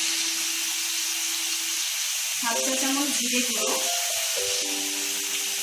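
Background music, one held note and then a melody of sustained notes, over a steady sizzling hiss of potato and ridge gourd frying in oil.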